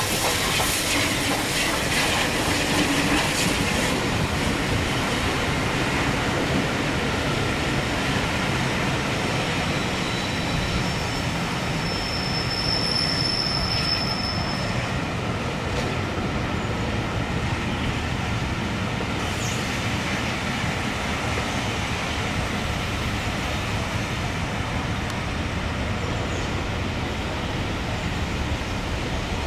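Steam-hauled train rolling slowly past: the Bulleid light pacific 34067 Tangmere, then its coaches running steadily over the rails. A high hiss of steam is heard at first, and a brief high wheel squeal comes a little before halfway.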